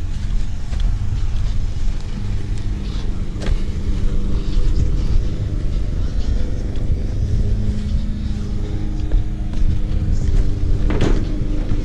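Zero-turn lawn mower engine running steadily, a low even hum.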